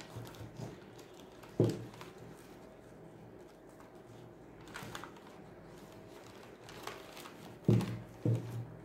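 Hands kneading moist chapati dough of wheat flour and mashed potato in a bowl: a soft squishing, crumbling rustle, broken by a few dull thumps, once about a second and a half in and twice near the end.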